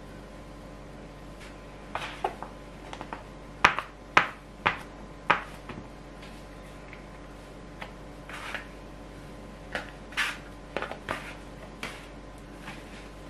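Bread dough being kneaded by hand on a wooden tabletop as butter is worked in: irregular knocks and slaps on the wood, loudest a few seconds in, mixed with softer scrapes of a plastic dough scraper.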